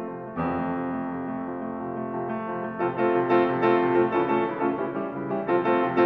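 Steinway D concert grand piano playing quick repeated chords. About half a second in, a chord is struck and left ringing for a couple of seconds, then the rapid repeated figures resume.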